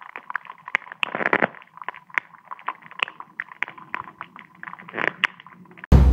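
Recording of a great pond snail eating: a steady stream of small, irregular clicks and scratches. Drum-kit music cuts in abruptly near the end.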